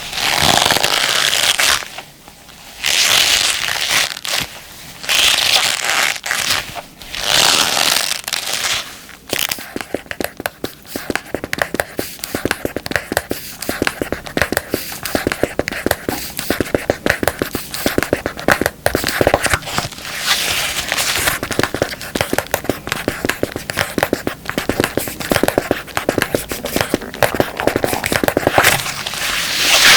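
Combat gloves being handled for ASMR: the first nine seconds or so hold several crinkling swells of about a second each, followed by a dense run of quick scratches and taps that goes on to the end.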